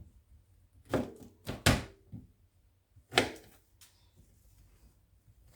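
Irregular knocks and thuds of kitchen work on a counter or cutting board while preparing the ingredients: several sharp strikes about a second in, a louder pair just before two seconds, another loud one about three seconds in, and a few softer taps between.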